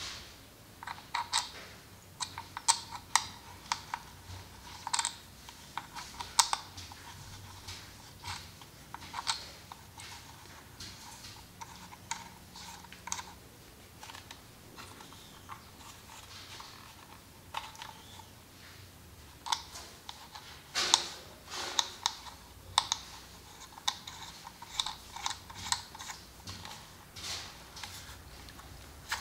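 Irregular small plastic clicks and taps from handling a DJI drone remote controller while its thumbsticks are screwed in, with a louder, denser run of clicks about two-thirds of the way through.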